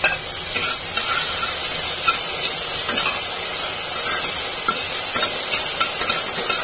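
Diced carrot, green beans and peas sizzling in ghee in a stainless steel pressure cooker. A steel spoon stirring them clicks and scrapes against the pan again and again over the steady sizzle.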